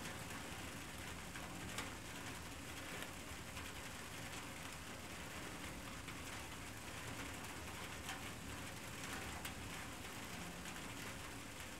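Steady faint hiss of a trail camera's recording, broken by a few faint clicks.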